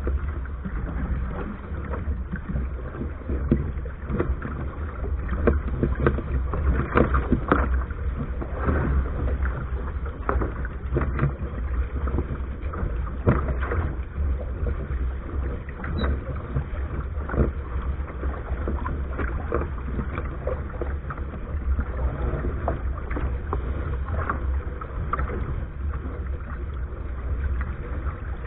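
Water rushing and slapping against a small sailboat's hull under way, in many short irregular splashes, over a steady low rumble of wind buffeting the deck-mounted action camera's microphone.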